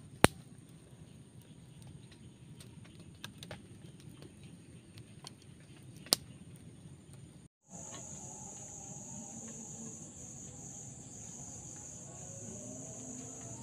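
Wood campfire crackling, with scattered sharp pops from the burning sticks, two of them loud (just after the start and about six seconds in), over a thin high insect buzz. After a cut about seven and a half seconds in, a steady night chorus of insects, crickets by the sound tags.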